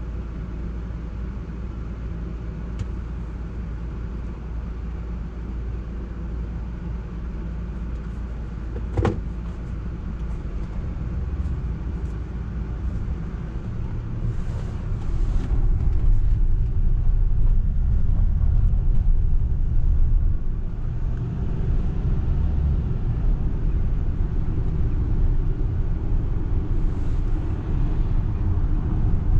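Low road and tyre rumble heard inside the cabin of a Tesla Model X 100D electric SUV on the move, growing louder about halfway through as the car picks up speed. A single sharp click about nine seconds in.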